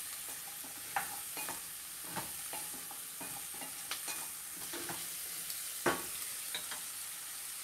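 Sliced carrots, onion and garlic sizzling in a stainless steel saucepan, a steady hiss, while a wooden spoon stirs them, with scattered knocks and scrapes of the spoon against the pan.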